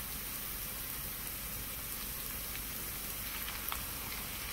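Chicken breasts, onions and garlic sizzling in butter in a skillet on medium-high heat: a steady frying hiss.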